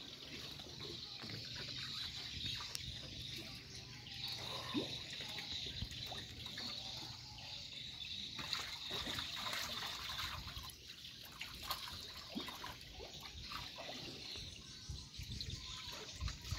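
River water trickling and lapping around the wooden planks of a floating fish-cage platform, with scattered small clicks and a faint steady high hiss.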